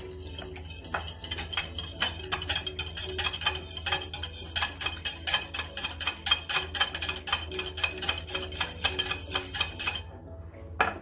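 A utensil beating egg yolks and milk in a bowl, clicking against the bowl's side about four or five times a second, stopping abruptly near the end.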